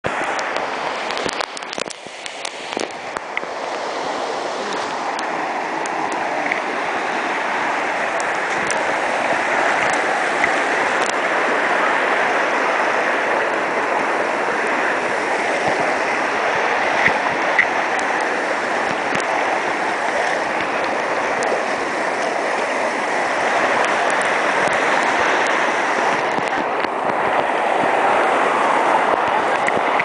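Shallow, fast river rushing over rocks: a steady hiss of white water, close to the microphone. A few sharp knocks come in the first three seconds.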